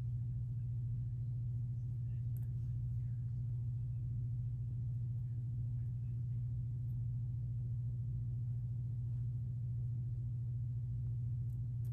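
Steady low hum with nothing else distinct over it.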